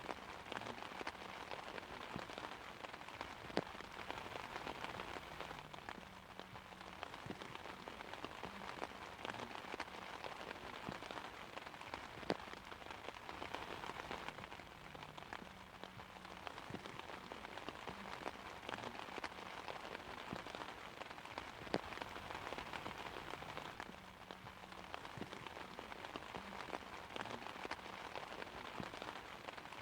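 Steady rain pattering on an umbrella, a continuous hiss with scattered individual drops ticking sharply against the fabric, a few louder than the rest, and no thunder.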